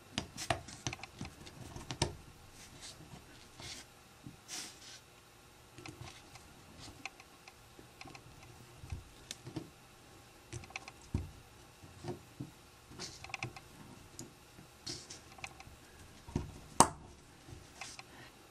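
Small plastic Lego bricks being handled and pressed together: scattered light clicks and rattles, with one sharper snap near the end.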